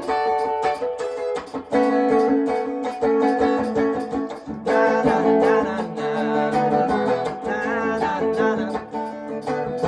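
Guitar playing an instrumental passage of a rock and rhythm-and-blues song, strummed chords.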